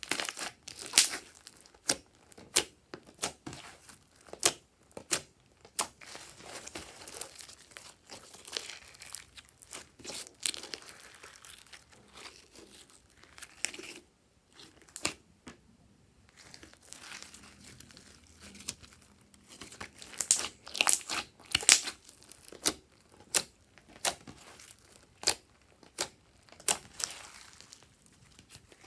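Slime being squished and stretched by hand, making irregular sharp crackles and pops, with a short lull about halfway through.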